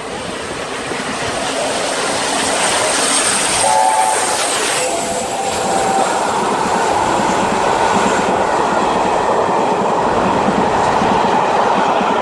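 Peppercorn A1 Pacific steam locomotive 60163 Tornado passing at speed, its chime whistle sounding briefly about four seconds in, then the steady rush and rumble of the train going by.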